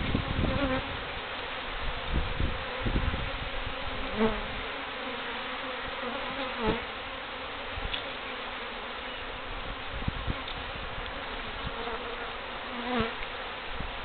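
A disturbed colony of feral honeybees buzzing in the air around the microphone, a steady hum with single bees whining past close by a few times. The bees are stirred up by their comb being cut out of the nest.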